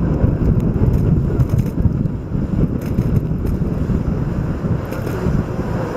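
Wind buffeting the microphone aboard a moving tour speedboat, over the steady running of the boat's engine and water.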